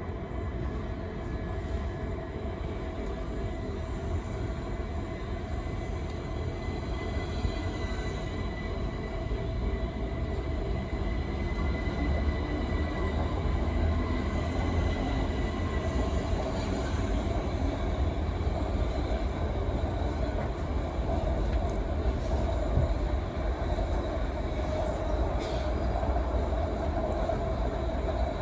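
A vehicle running: a steady low rumble with faint high whines over it, growing a little louder about halfway through.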